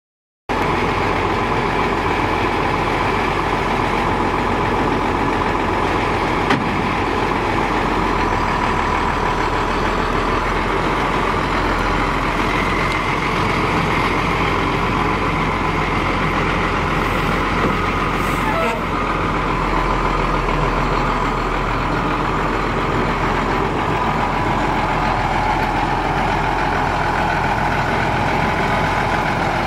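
1991 Ford F800 utility truck's engine idling steadily, starting about half a second in.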